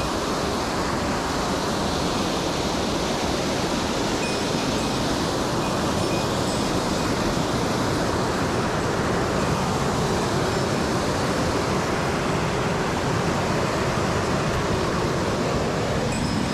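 Rushing mountain stream: the steady, unbroken sound of fast water running over rocks.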